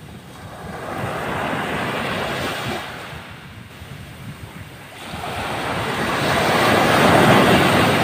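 Ocean waves washing in, in two swells: one building about a second in and fading by about three seconds, then a louder one rising from about five seconds in and peaking near the end.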